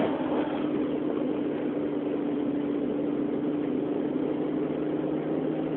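A steady motor hum, an even drone with no change in pitch, picked up by a camera inside a pocket.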